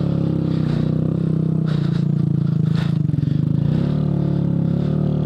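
2014 Honda Grom's 125 cc single-cylinder engine running at a steady pace while the bike rides on a sandy trail, with a couple of brief rattling knocks about two and three seconds in.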